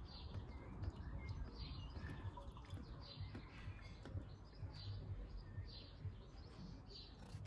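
Faint sound of engine coolant being poured from a plastic bottle into a car's expansion tank, under a low rumble, with short high chirps recurring about once a second.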